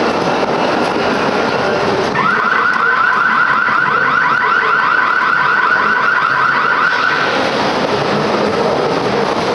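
Ghost-train car rumbling and clattering along its track. About two seconds in, a loud alarm-like scare effect starts over it: a rapid warble of repeated upward chirps. It lasts about five seconds and cuts off, while the rumble of the ride goes on.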